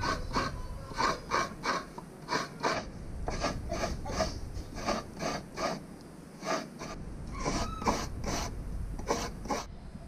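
Rhythmic rasping scrapes on wood, made by hand, about two strokes a second with a few short pauses.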